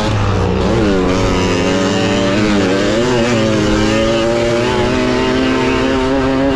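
Tuned 50cc two-stroke motorcycle engine at full throttle, its pitch dipping about a second in and again near the middle, then climbing steadily.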